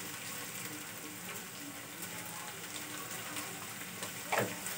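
Chopped vegetables frying in oil in a pan, a steady soft sizzle. A brief louder sound comes about four seconds in.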